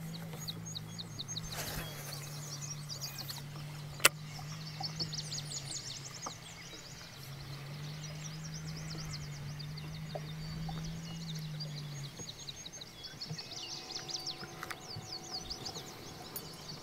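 Birds chirping in quick repeated trills over a steady low hum; the hum drops out briefly about halfway and stops about twelve seconds in. A single sharp click sounds about four seconds in.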